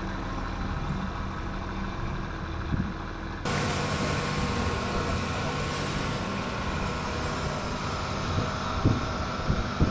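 Long-tail boat engine running steadily with a low hum. About three and a half seconds in, the sound turns abruptly louder and hissier, and a few low thumps come near the end.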